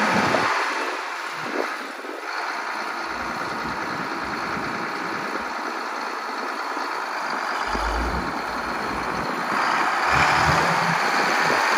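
Allis-Chalmers 7050 tractor's turbocharged six-cylinder diesel engine running steadily as the tractor drives, growing louder near the end as it comes closer.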